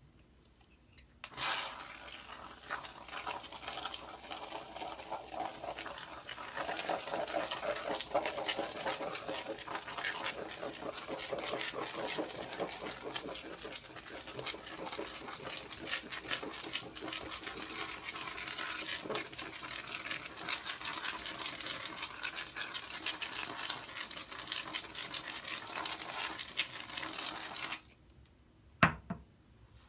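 Mr. Bubble Foam Soap aerosol can spraying foam onto a sponge: a steady hiss with fine crackling. It starts with a sharp burst a little over a second in and cuts off suddenly about 26 seconds later. A single short knock comes near the end.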